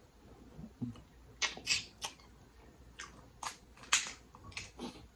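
Close-miked eating sounds: a mouthful of seafood being chewed, with irregular wet smacks and clicks of the lips and mouth, the loudest at about a second and a half in and around four seconds.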